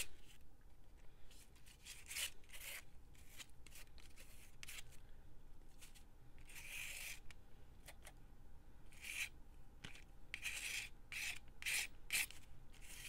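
Faint scratching and rubbing of a Stabilo All pencil over a paper card coated in wet gesso, in short irregular strokes with one longer stroke near the middle.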